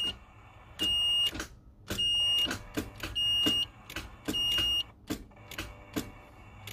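A car's electronic warning beep sounding four times at about one-second intervals, a steady high tone each time, with light clicks from the ignition switch as the key is turned. The starter does not crank: the Nissan S14 still won't turn over after a new starter and battery terminals.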